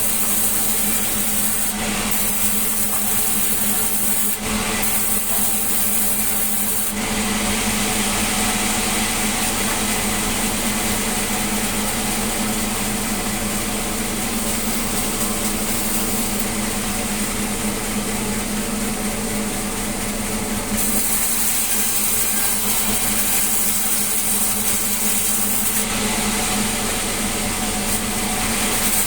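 Sawmill saw running steadily with a low hum and a hiss while cutting melinjo wood, its tone shifting a few times as the cut goes on.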